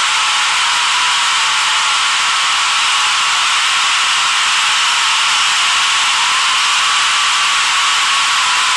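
Steady, loud rush of jet engine and airflow noise heard inside an airliner cabin during descent, with a faint whine that drifts slowly in pitch.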